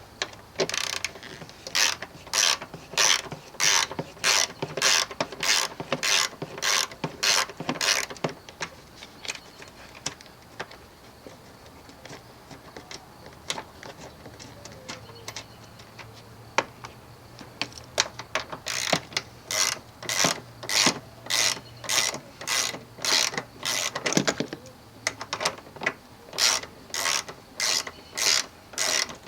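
Hand ratchet wrench clicking as it is worked back and forth on a bolt, about two strokes a second. There is one run of strokes, a pause of about ten seconds, then a second run.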